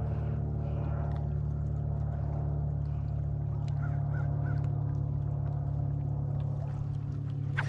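Boat motor running with a steady, even hum. A bird calls a few times, faintly, about four seconds in.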